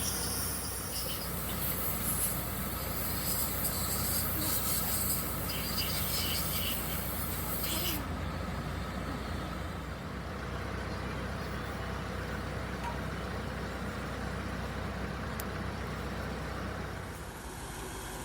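An engine running steadily, with a high hiss over it that cuts off suddenly about eight seconds in.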